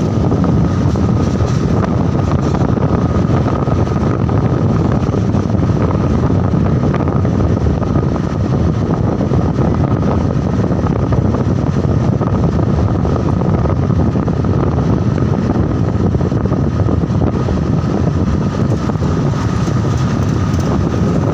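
Steady rumble of road vehicles with wind blowing on the microphone, and a faint steady whine above it.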